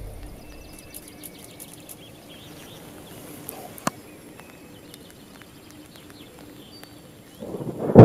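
Quiet outdoor ambience with faint bird chirps and a single click about four seconds in, then thunder breaks near the end, rising quickly into a loud crack.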